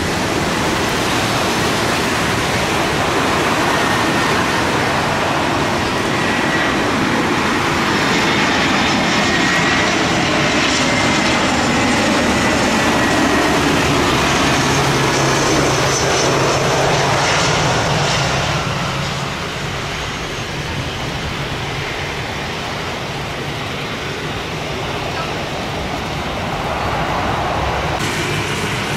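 Jet engines of an Airbus A320 passing low over the runway on approach, a loud roar with a whine that sinks in pitch as it goes by, then fades a little. Heavy rain hisses steadily underneath.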